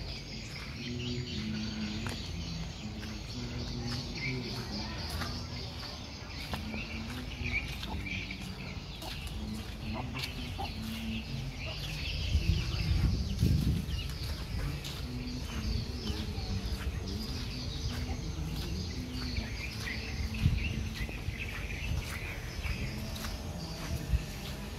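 Chickens clucking and small birds chirping throughout. A louder low rumble comes about halfway through.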